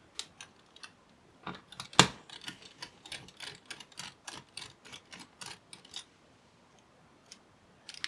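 Precision screwdriver turning out the small retaining screws of a laptop cooling fan: a run of light clicks and ticks, about four a second, with one sharper click about two seconds in.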